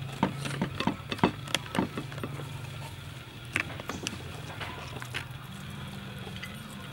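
Kitchen knife scraping and tapping against the inside of a cooked horseshoe crab's shell as the roe is scooped out onto a ceramic plate: a quick run of clicks and scrapes in the first two seconds, then sparser ones, over a steady low hum.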